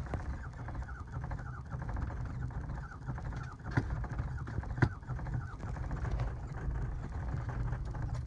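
Truck engine being cranked on the starter without firing: a steady rhythmic churning, with two sharp clicks about four and five seconds in. The engine won't start.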